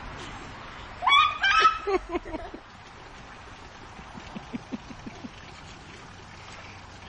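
Two loud, high-pitched animal cries about a second in, followed between four and five seconds in by a run of soft, low, short calls.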